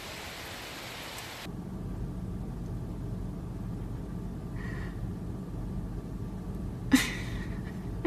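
Steady rain hiss for about the first second and a half, then a sudden change to the low, steady rumble of a car cabin, with one sharp click near the end.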